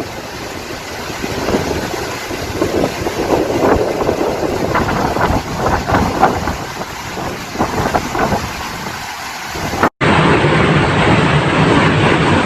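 Strong typhoon wind buffeting the microphone in irregular gusts over a rushing noise. About ten seconds in, the recording cuts to a steadier, denser rushing noise.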